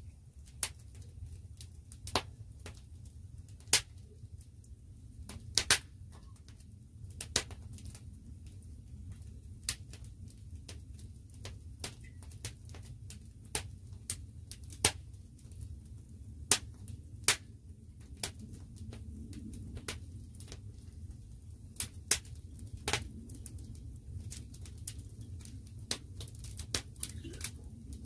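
Campfire crackling, with sharp irregular pops every second or two over a steady low rumble.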